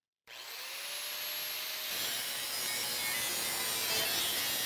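Angle grinder with a cut-off wheel starting up, its whine rising in pitch, then cutting through a thin steel bracket with a steady grinding hiss.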